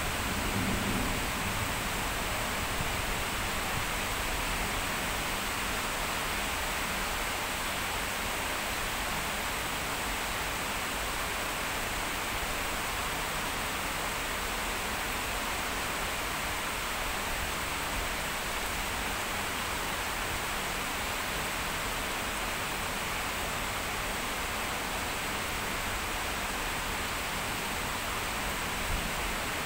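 Heavy rain falling in a downpour, a steady, even hiss.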